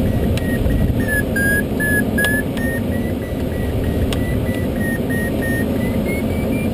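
Glider's audio variometer beeping rapidly at a high pitch over steady rushing airflow; the beep tone dips for a moment, then rises in pitch near the end, the vario's sign of stronger lift. A few short clicks of the airframe.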